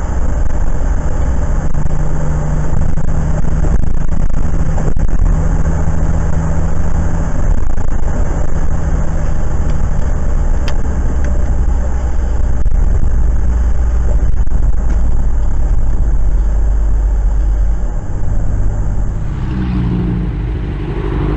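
Road noise from a car driving on a wet highway in rain: a steady low rumble with tyre hiss and a few faint clicks. About 19 seconds in it cuts to a motorcycle engine running in traffic.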